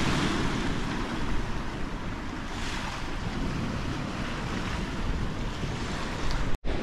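Small waves washing on a sandy beach, with wind rumbling on the microphone; the wash swells twice. The sound cuts out completely for a moment near the end.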